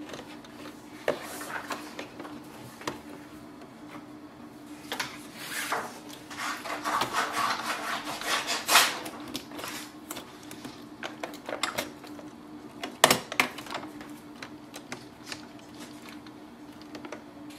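Plastic printer parts being handled and fitted together: rubbing and scraping around the middle, with scattered clicks, the sharpest about thirteen seconds in, over a low steady hum.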